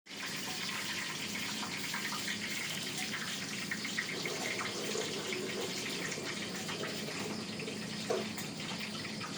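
Steady rush of running water, like a tap running into a sink or tub, with a brief rising sound about eight seconds in.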